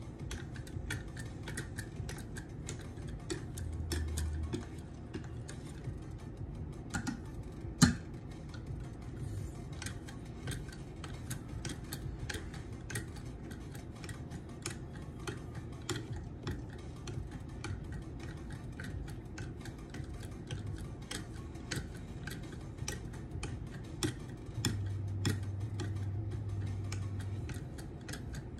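Strokes of the abrasive on a KME guided sharpener's rod carrier drawn along the edge of an ESEE 4 knife: a steady run of small, irregular clicks and light scrapes, with one sharper click about eight seconds in. A low hum comes in briefly around four seconds and again for about three seconds near the end.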